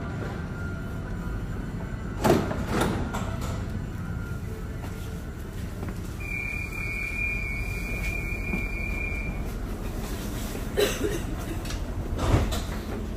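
Metro train rumbling steadily at the platform and in the carriage, with a few sharp knocks, and a single steady high warning tone held for about three seconds midway: the door-closing signal.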